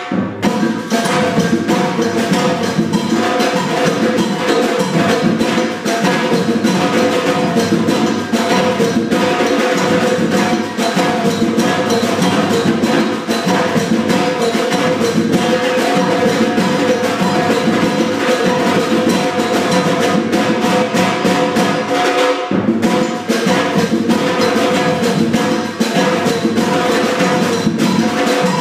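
A live drum ensemble playing a steady samba-reggae groove: deep drums and sharp, wood-block-like strikes in a fast, even rhythm. It breaks off for a moment a little over twenty seconds in, then comes straight back in.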